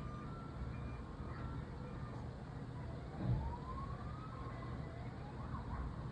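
Faint toy siren sound effect from children's toys outside: a wailing tone that rises slowly, then wavers. A soft thump about three seconds in.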